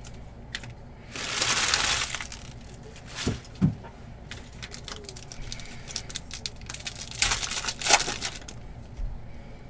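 Foil trading-card pack being crinkled and torn open by hand: a long crinkle about a second in, two short knocks just after three seconds, then a run of crackling and tearing that peaks near the end.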